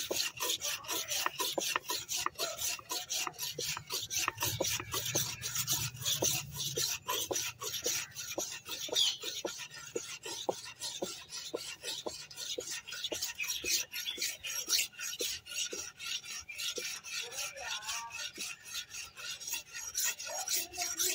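A curved billhook blade (banana-cutting aruval) stroked rapidly back and forth against a wooden sharpening stick to hone its edge: a steady run of short scraping strokes, about four a second.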